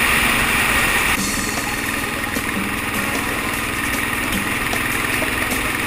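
Homemade go-kart's small engine running as the kart drives along. The sound changes abruptly about a second in, becoming somewhat quieter in its higher part.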